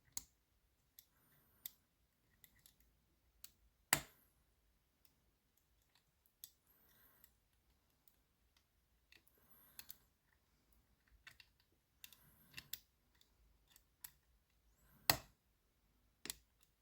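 Pick and tensioner working the levers of a Lowe & Fletcher 8-lever double-bitted safe lock: faint scattered metallic clicks and light scraping, with two sharper clicks, one about four seconds in and one near the end.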